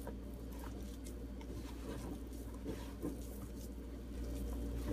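Hands squeezing and mixing wheat flour into mashed avocado in a plastic bowl: faint soft squishing and patting with scattered light taps, over a low steady hum.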